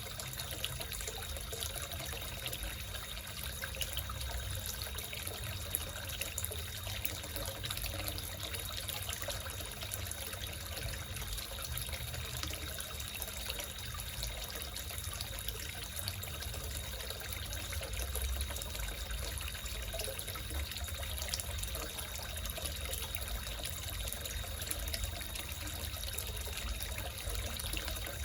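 Water trickling and splashing steadily into a small koi fish pond.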